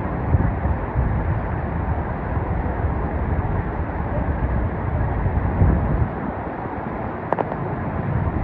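Kozjak stream rushing over rocks, a steady noise of flowing water with a low, uneven rumble beneath it. A single sharp click sounds about seven seconds in.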